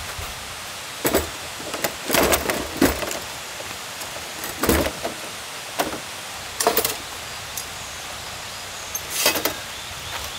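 Several short bursts of rustling and clatter from something being handled, over a steady high drone of summer insects.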